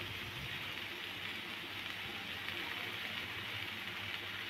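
Egg omelette paratha frying on a hot flat griddle (tawa), giving a steady sizzle.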